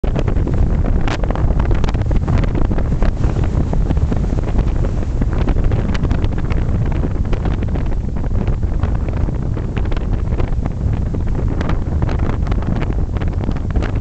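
Strong desert wind in a sandstorm buffeting the microphone: a loud, steady low rumble with frequent short crackles from the gusts.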